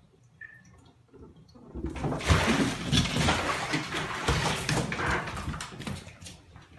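A cat splashing and thrashing in bathtub water after falling in. The splashing starts suddenly about two seconds in and dies away as the cat scrambles out.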